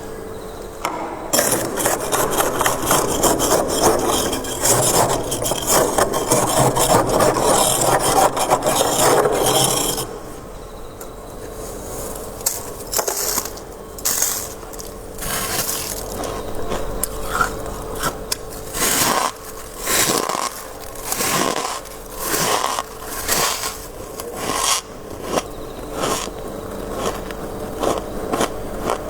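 Frost being scraped off the inside of a freezer: one long continuous scrape lasting about nine seconds, then a run of short separate scraping strokes about a second apart.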